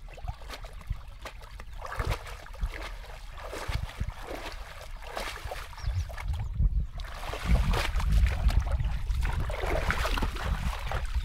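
Shallow water splashing and sloshing as a person wades through it with legs and feet, with water streaming off a wet cast net just lifted out. Irregular splashes, heavier and louder in the second half.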